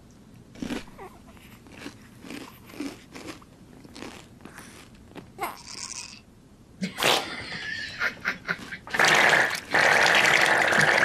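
Soft crunching and eating sounds of toast being bitten and chewed, then laughter around seven seconds in. A loud, steady rushing hiss starts about nine seconds in.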